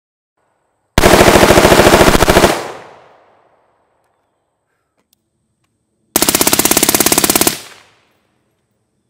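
Short-barrelled AR-style rifle fitted with a suppressor, firing two long fully automatic bursts about five seconds apart. Each burst lasts about a second and a half and its echo dies away after it.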